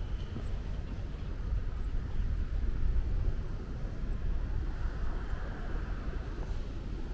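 Outdoor park ambience with an uneven low rumble throughout and distant traffic, which swells faintly about five seconds in. A couple of faint, high bird chirps come about three seconds in.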